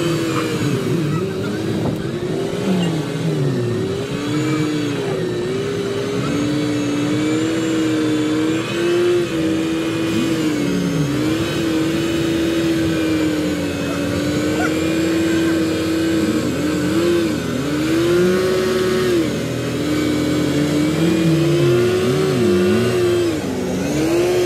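Suzuki Jimny's engine revving up and down again and again as the 4x4 labours through deep mud.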